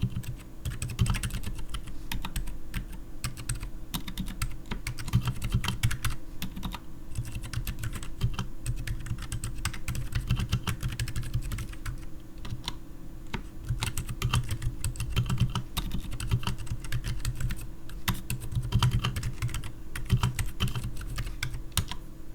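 Continuous fast typing on a Keycool KC84 mechanical keyboard with stock, unlubed Outemu Silent Forest silent tactile switches and PBT keycaps: a steady stream of muted key clicks and soft low thocks as keys bottom out.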